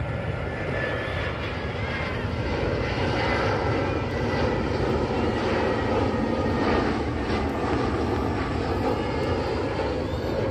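Airbus A320-214 jet airliner on landing approach with gear down, its CFM56 turbofan engines giving a steady rushing jet noise with a faint whine. The noise slowly swells as the plane passes overhead.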